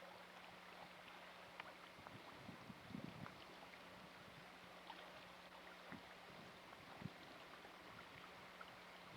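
Near silence: a faint steady hiss with a low hum, broken by a few faint ticks.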